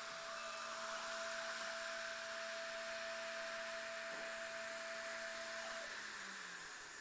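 PCB milling machine running: a steady whine over an airy hiss. The whine stops about six seconds in, sliding down in pitch as it ends.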